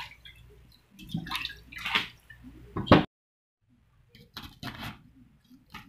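A carrot being rubbed and swished by hand in a plastic basin of water, with splashes and sloshes in bursts. After a brief gap, a cleaver cuts into a cabbage head with a few short, crisp crunches.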